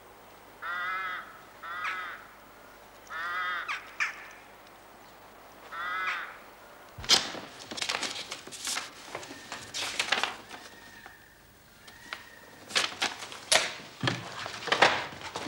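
A crow cawing: about five harsh calls spread over the first six seconds. After a sudden change about seven seconds in, there is paper rustling with sharp clicks as an envelope is handled.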